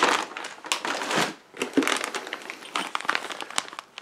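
Clear plastic parts bags crinkling and rustling as they are handled, with small clicks throughout.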